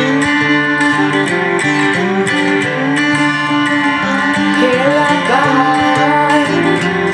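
Theme music led by guitar, a steady tune of plucked notes with a melody that slides in pitch about five seconds in.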